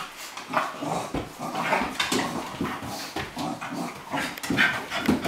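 A Cairn Terrier and a flat-coated retriever play-fighting: short, irregular dog vocal sounds, with knocks of bodies and paws against the wooden floorboards.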